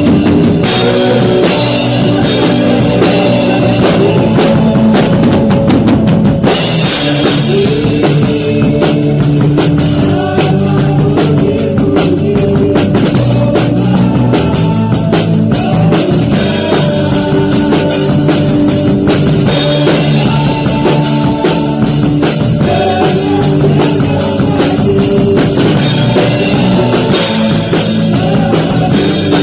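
Live praise-band music led by an acoustic drum kit, with bass guitar, electric guitar and keyboard underneath. The drumming grows busier about six seconds in, with dense cymbal and hi-hat strokes.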